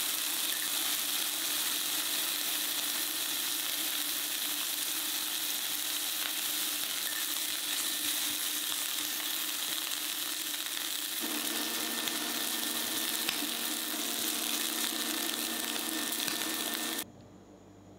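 Sliced abalone meat sizzling steadily in a hot frying pan as it browns. The sizzle cuts off abruptly near the end.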